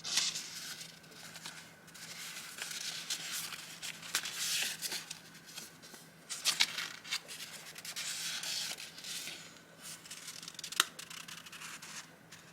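Paper rustling and crinkling in several bursts as vintage journaling papers and stickers are handled, with a few sharp taps, the sharpest near the end.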